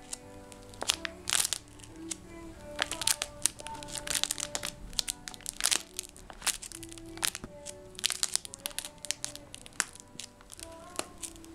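Plastic sleeve pages of a postcard album crinkling and crackling as they are turned by hand, in many sharp, irregular crackles. Background music with held notes plays underneath.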